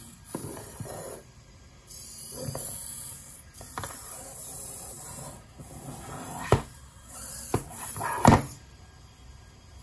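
Tomy i-SOBOT toy humanoid robot's servo motors whirring in several short spells as it works to get up from lying down. A few sharp plastic clacks come as its body knocks against the surface, the loudest in the second half. Its batteries are running low.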